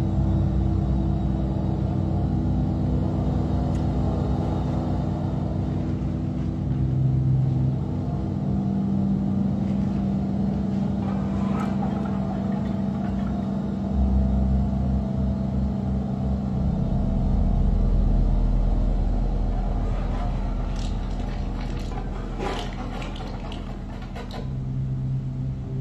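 Deep drone of a dance performance's sound score: sustained low tones that shift every few seconds, with scattered crackles and a cluster of clicks near the end.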